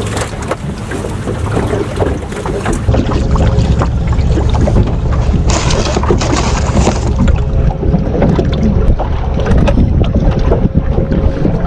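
Wind buffeting the microphone, a loud low rumble that thickens about three seconds in, with scattered knocks and rattles from fishing gear and the boat being handled.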